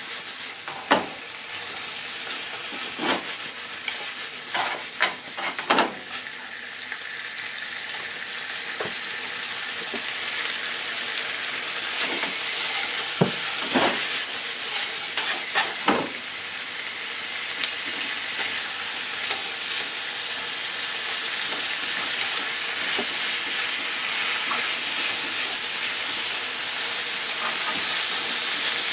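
Ham, onion and potato stir-frying in a frying pan: a steady sizzle that slowly grows louder, with sharp clicks and knocks of the wooden chopsticks and pan as the food is turned, mostly in the first six seconds and again about halfway through.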